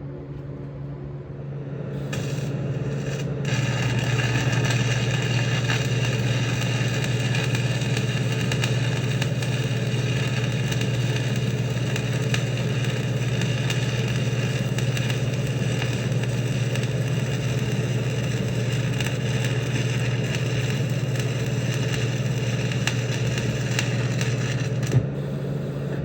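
Stick welding arc from a 3/32 7018 electrode run on a square-wave TIG welder with the foot pedal: the arc starts about two seconds in, struck with the machine's high frequency, then crackles and hisses steadily over the welder's loud hum for about twenty seconds and cuts off near the end.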